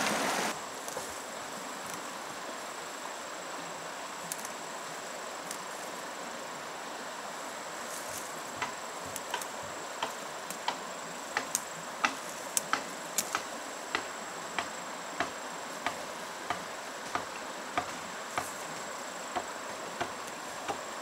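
Insects trilling in one steady high-pitched tone over faint outdoor noise. From about eight seconds in, sharp ticks join in a regular rhythm, a little under two a second. A short burst of rushing stream water cuts off in the first half-second.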